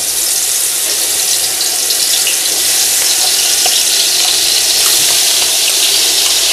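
Ginger-garlic paste sizzling and spattering as it is spooned into hot cooking oil in a pot, with a few light ticks from the spoon.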